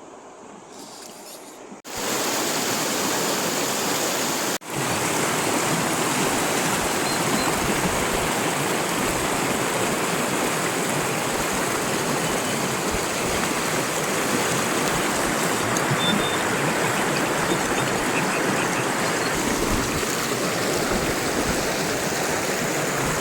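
Steady rushing of shallow river water over a riffle, coming in loudly about two seconds in, with a brief dropout a few seconds later.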